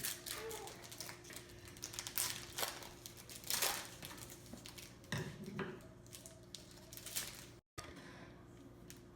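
Plastic trading-card packaging being cut open with scissors and handled: scattered crinkles, rustles and short clicks.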